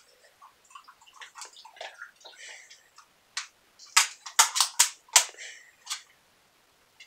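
A dog feeding at stainless steel bowls: a run of sharp clicks and clatters, with a louder quick flurry of knocks about four to five seconds in.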